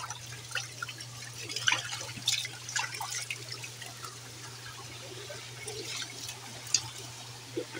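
Water splashing and dribbling as a black plastic basin is scooped through shallow water on a tiled tank floor, with scattered small splashes and knocks, most of them in the first half. A faint steady low hum runs underneath.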